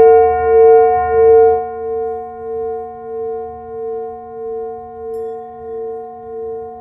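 A large brass singing bowl, struck with a mallet, rings on in several steady tones. Its sound fades and wobbles in a slow pulse about one and a half times a second. About five seconds in, a faint light tap on the small bell hanging above adds a soft higher ring.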